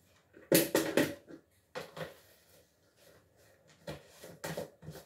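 Plastic jar and its screw-on plastic lid handled on a tabletop as the lid is fitted and pressed down: a cluster of sharp knocks and clatter about half a second in, then a few single knocks.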